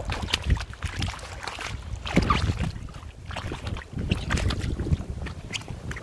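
Riding boots squelching and sucking in wet mud, an irregular run of sloppy wet steps and pulls.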